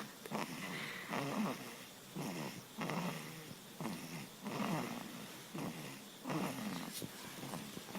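A newborn under a month old snoring in its sleep: a raspy snoring breath every second or so.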